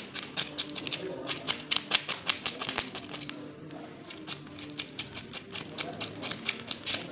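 Knife blade scraping the scales off a whole fish on a wooden chopping block, in quick rasping strokes several times a second, with a brief pause a little under halfway.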